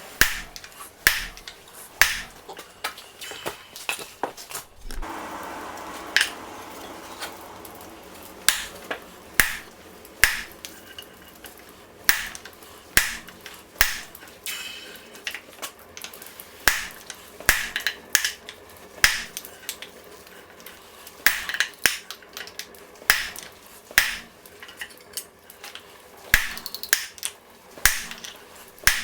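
Blacksmith's hammer striking steel on an anvil while forging, sharp blows at roughly one a second with a short break about five seconds in.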